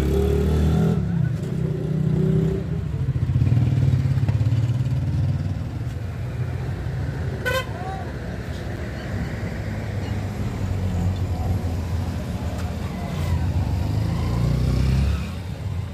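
A motor vehicle's engine running close by, a steady low rumble that starts suddenly and drops away near the end.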